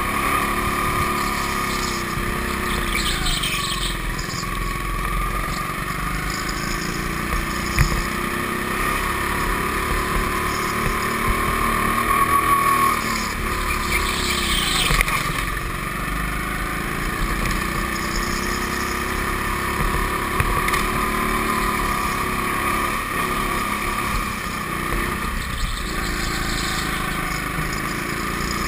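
Go-kart running at speed around a track, its motor pitch rising and falling through the laps.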